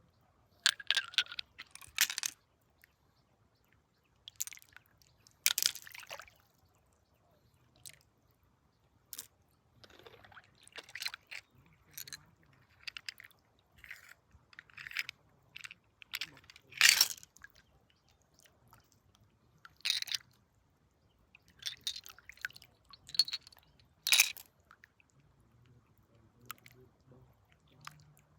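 Stones and gravel crunching and clicking in short, irregular scrapes and knocks, with a few louder ones scattered through, as rock is dug and moved in search of gold.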